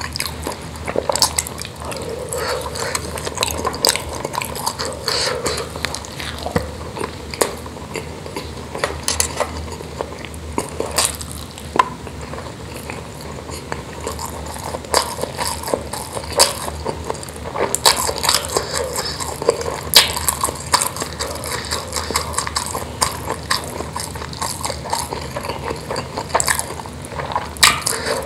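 Close-miked eating of spicy meatballs with rice: wet chewing and lip smacking with many irregular sharp clicks, and fingers working food on a metal tray.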